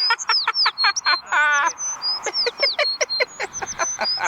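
Bird calls: a quick run of high whistles, each falling sharply in pitch, with one nasal, quavering quack-like call about a second and a half in.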